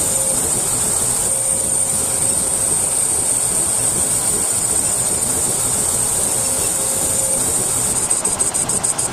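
Bosch brake lathe turning a brake rotor, its cutting bits shaving the rotor faces with a steady high-pitched hiss over the running machine. About eight seconds in, the sound starts to pulse quickly, several times a second.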